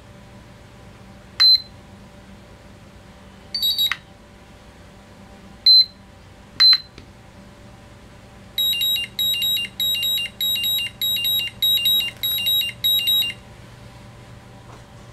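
An iMAX B6 LiPo balance charger beeping as a 5S LiPo balance charge is started. First come a few short single beeps, one of them doubled, then a quick run of about a dozen beeps lasting about five seconds.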